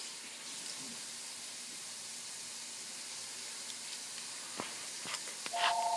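Faint steady hiss with a couple of small clicks, then near the end a phone starts ringing: a steady electronic ring of two held tones.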